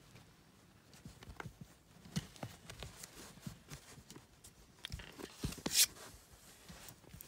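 Toy poodle puppies shuffling about in a blanket-lined cardboard box: irregular soft scratches, rustles and taps of paws and bodies on fleece and cardboard, with one louder rustle late on.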